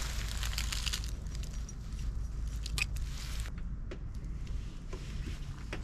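Scattered light clicks and crunches of hand work pulling nails from a trailer's aluminium skin, over a low steady rumble. A sharper click comes right at the end.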